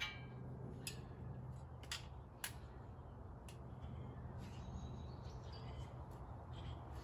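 A few short, faint metallic clicks and taps from a steel front bumper being handled and tested on its mounts, spaced a second or so apart in the first few seconds, over a low steady hum.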